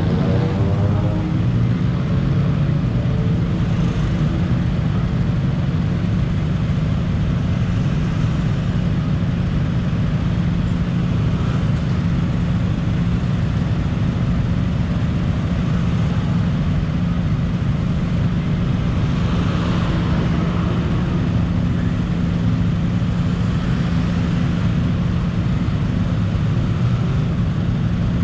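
Stop-start city traffic: scooter and car engines idling together in a steady low hum. At the start one engine speeds up, its note rising in pitch.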